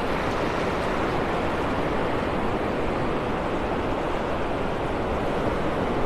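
Surf: small waves breaking over the sandbar and washing up the beach, making a steady, even rushing wash with no single crash standing out.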